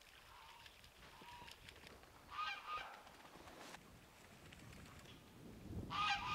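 Farm waterfowl calling, faintly: two short calls, one about two and a half seconds in and one near the end.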